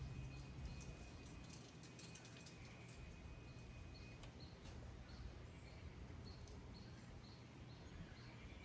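Near silence: faint outdoor ambience with small high chirps repeating in the second half, typical of birds. A faint steady high tone stops about four seconds in.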